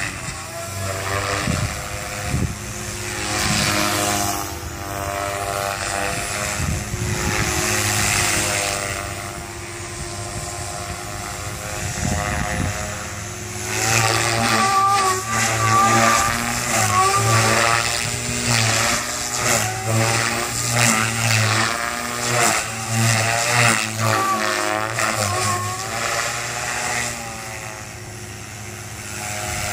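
Goblin 380 electric RC helicopter in flight, its brushless motor and rotor whining. The pitch and loudness rise and fall as it manoeuvres, with quick repeated surges through the middle part.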